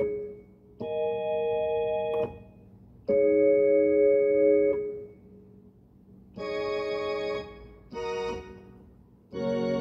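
Portable electronic keyboard on an organ voice, playing slow held chords: four chords of one to two seconds each, each cutting off abruptly when the keys are released. A fuller, brighter chord starts near the end.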